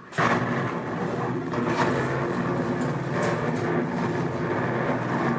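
Dense, buzzing electronic feedback noise from a sound-light feedback installation, cutting in suddenly just after the start and then running steadily.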